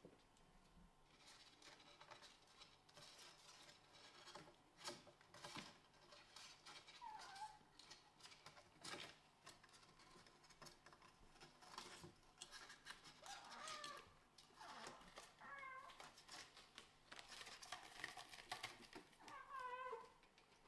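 Kittens mewing several times in short high cries, the last and clearest a wavering mew near the end, over the light taps and clicks of small paws and claws running on a wooden floor.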